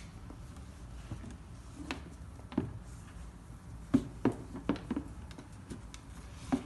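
Handling noise from a pair of sneakers being turned over and set down: a scatter of short light knocks and taps, several close together about two thirds of the way through.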